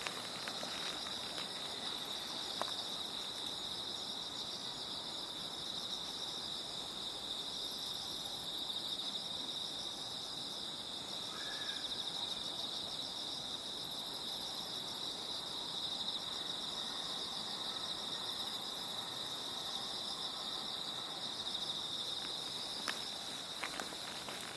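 Night chorus of autumn crickets: a steady high-pitched trill with a second, pulsing trill just above it, holding even throughout. A few footsteps come in near the end.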